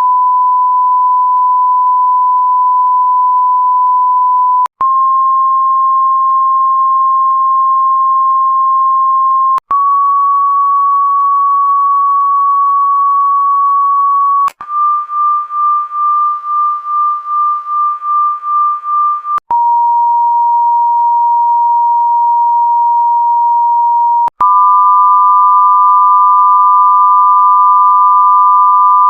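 TV "no signal" test tone: a loud, steady beep near 1 kHz, played in about six takes of roughly five seconds each, each cut off by a short click-gap. The first three step slightly higher in pitch each time. The fourth wavers rapidly and sounds buzzy with added overtones, the fifth is a little lower, and the last is two beeps sounding together at slightly different pitches.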